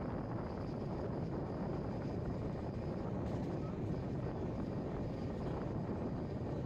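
Steady running noise of a passenger express train in motion, heard from on board.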